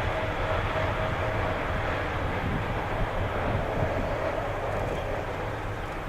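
Jet aircraft engines running with a steady rumble and a faint whine, slowly fading as the aircraft moves away.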